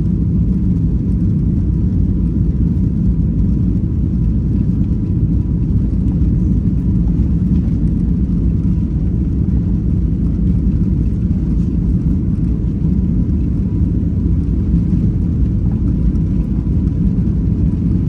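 Steady low rumble of a Boeing 737 MAX 8 airliner's engines and airflow heard inside the passenger cabin, with a faint steady high tone under it.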